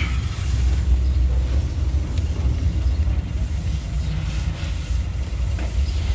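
Suzuki Carry engine idling steadily on petrol, a low even rumble.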